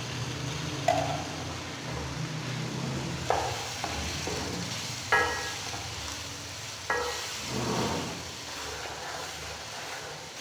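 Cubed potatoes and ground spices sizzling in hot oil in a non-stick wok, stirred with a wooden spoon that scrapes and knocks against the pan a few times, about one, three, five and seven seconds in. This is the spices being fried into the potatoes before the aubergine goes in.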